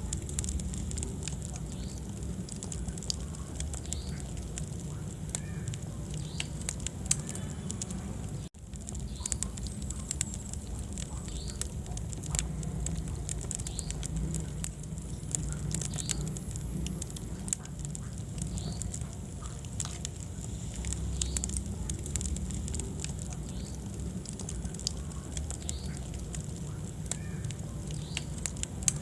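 Wood fire crackling in a fireplace: frequent sharp pops and snaps over a steady low rumble of the flames, with a brief cut in the sound about eight and a half seconds in.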